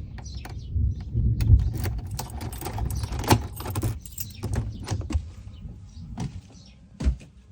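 A bunch of keys jingling and clicking, over an uneven low rumble.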